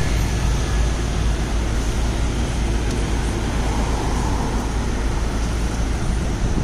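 Steady road traffic noise on a busy city street, with cars and a taxi passing close by.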